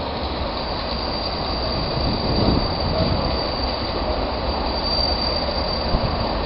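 Pair of Class 37 diesel locomotives with English Electric V12 engines approaching: a steady engine rumble, slowly growing louder, with a thin, steady high-pitched whine over it.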